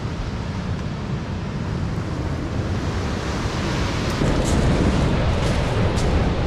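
Ocean surf and wind buffeting the microphone: a steady, even rumble heaviest in the low end. A few light crackles come through about four to six seconds in.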